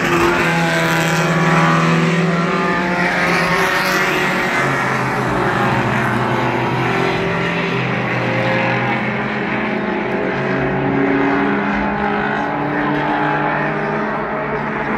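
Mini stock race cars' engines running on the oval track, several at once, with one car passing close at the start, its pitch dropping as it goes by.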